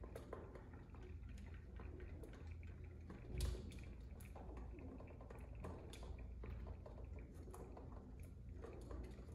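Feral pigeons pecking at food in dishes on a window ledge: faint, irregular tapping and clicking of beaks, heard through the window glass, with one louder thump about three and a half seconds in.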